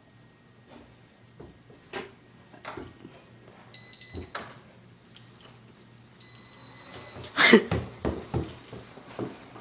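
A power wheelchair's electronic beep sounds twice, a short tone and then a longer one, among scattered light knocks. Near the end come several loud bangs and clattering.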